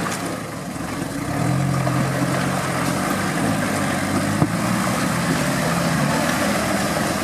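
Toyota Land Cruiser's engine running at low, steady revs, close to idle. A single sharp knock sounds about four seconds in.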